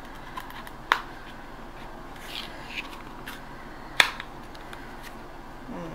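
Tape on a package being cut and the package opened by hand: a few sharp clicks, the loudest about four seconds in, with a brief rustle of packaging between them.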